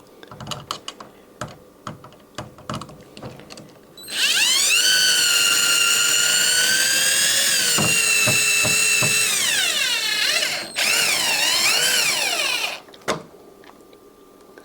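Power drill/driver motor whining as it turns a screw into the door hardware, starting about four seconds in. Its pitch sags as it loads up, it stops briefly, then runs again in a wavering spurt before stopping. Light clicks and knocks of hardware being handled come before it and just after.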